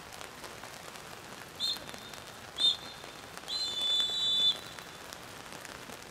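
Referee's whistle blown three times, two short blasts and then a longer one: the full-time signal ending the football match.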